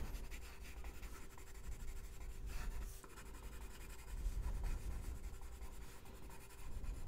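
Watercolor pencil scratching lightly across mixed media paper while shading in colour, a faint, uneven scratchy rubbing.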